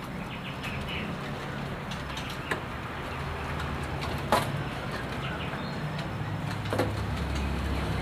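Caged birds chirping faintly and sporadically over a steady low rumble, with three sharp clicks or knocks spread through.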